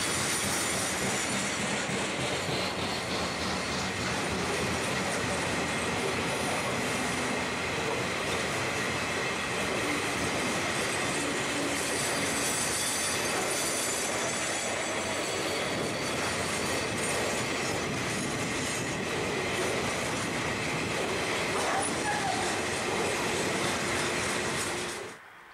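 A long rake of grain hopper wagons rolling past on the rails, a steady loud rush of wheel and rail noise with a thin, high, steady squeal running through it from the wheels. The sound cuts off just before the end.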